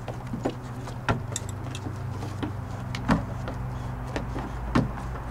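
Goats' hooves clattering on a wooden porch deck as the goats play, with three sharp knocks about one, three and nearly five seconds in, over a steady low hum.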